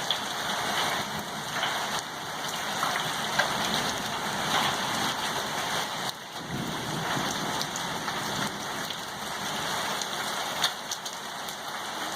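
Steady heavy rain pattering down as a hailstorm eases off, with a few sharp ticks of impacts scattered through it. A low rumble of thunder comes in about halfway through.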